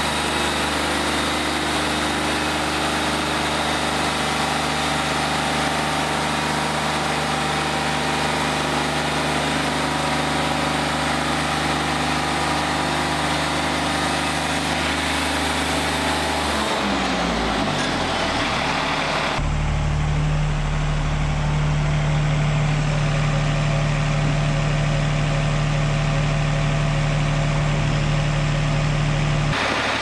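Wood-Mizer LT40 Wide diesel sawmill running as its band blade cuts through a pine cant, a steady engine sound under a hiss. About seventeen seconds in the pitch falls as the engine slows down, and after that a steady, lower engine hum carries on without the cutting hiss.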